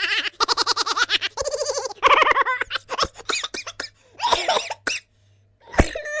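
Comic cartoon-style voice sound effects: rapid pulsing giggle-like laughter, then short chattering vocal bits with a few clicks, ending in a falling vocal glide.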